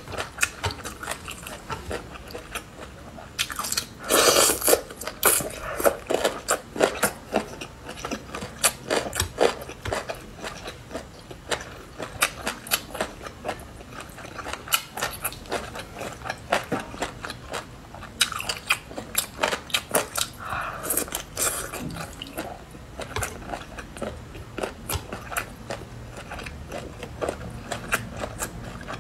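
Close-miked biting and chewing of chicken feet in chili broth, a steady run of sharp, crunchy clicks from skin and cartilage. Louder stretches come about four seconds in and again around eighteen to twenty-two seconds.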